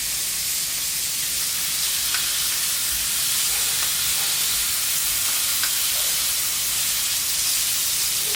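Steaks sizzling steadily on a Blackstone flat-top griddle, with garlic butter melting on top of them, and a few faint pops.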